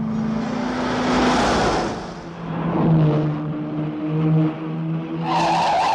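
Lamborghini Miura's V12 engine running. It rushes past over the first two seconds, then settles into a steady drone. About five seconds in, a higher sustained squeal joins it.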